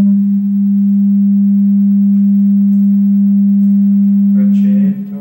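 A steady 200 Hz sine-wave test tone from a signal generator, played loud. Near the end there is a brief scratchy noise, and the tone breaks off.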